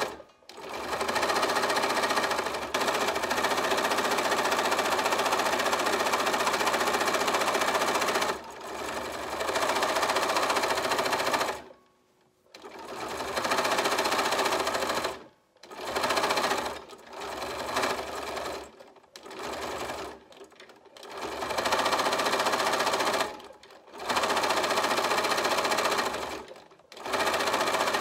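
Bernina Aurora 440 QE sewing machine stitching coils of fabric-covered rope, running fast in long stretches and stopping dead about six times, with a few quieter, slower runs between.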